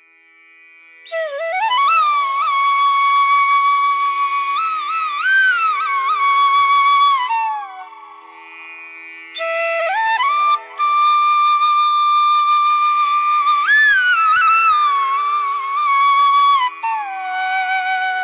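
Background music: a single wind-instrument melody of long held notes with sliding ornaments, played over a steady drone, in two long phrases with a softer stretch near the middle.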